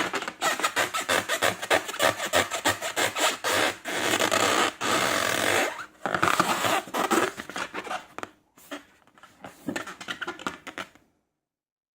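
Slime being worked by hand: sticky rubbing and squishing with many small crackling clicks. It thins out after about eight seconds and cuts off to silence about eleven seconds in.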